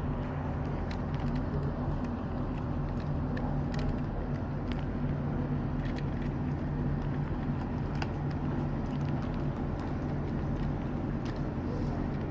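Model railway goods train running: a model locomotive's DCC sound decoder plays a steady engine drone, with scattered light clicks from the wheels running over the track.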